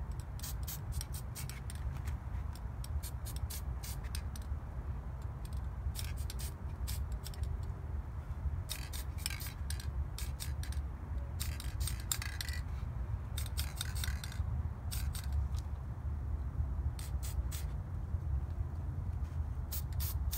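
Aerosol spray-paint can sprayed in many quick short hisses, with a few held a little longer in the middle. A steady low wind rumble runs underneath.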